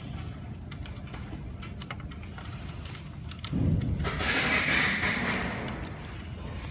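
Handling noise from hands pressing and routing wiring into the plastic chassis of an opened robot vacuum: light clicks at first, then a louder rustling scrape for a couple of seconds starting about three and a half seconds in.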